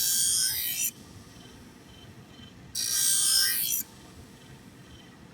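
Scissor blade drawn across the Twice as Sharp machine's spinning stone wheel in grinding passes of about a second each. One pass ends just under a second in and another comes about three seconds in. A faint steady machine sound runs between them.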